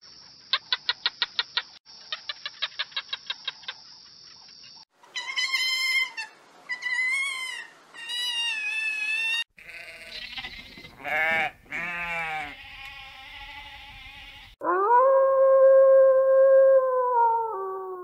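A run of separate animal sounds: two quick runs of sharp clicks, three short wavering calls, then sheep bleating with a quaver. Near the end comes one long wolf howl that rises at first, holds steady and dips slightly as it ends.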